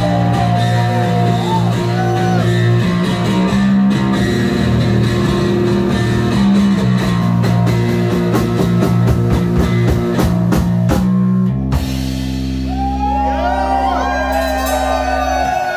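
Live rock band playing loud: electric guitars, bass guitar and drum kit, with a sung line at the start. About twelve seconds in the drums stop and a final chord rings on with voices shouting over it, then cuts off sharply at the end of the song.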